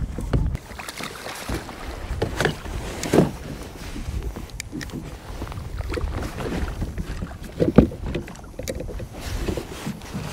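Water splashing and lapping against a fishing kayak's hull, with wind buffeting the microphone in the first half second. Scattered knocks of gear on the hull, the loudest about eight seconds in.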